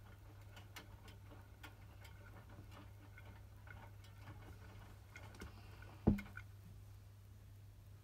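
Hotpoint WMFUG 942 front-loading washing machine's drum turning a wet wash load, with a low steady hum and many small irregular clicks from the tumbling. About six seconds in there is a single loud clunk, after which the tumbling clicks stop as the drum comes to rest.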